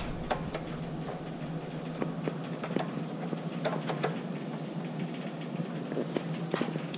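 Irregular sharp clicks and small crackles as a battery-charger clamp is touched to the electric starter terminal of a Tecumseh OH180 18 hp engine, making sparks, over a steady low hum. The starter does not turn the engine over, which the owner takes for a dead starter.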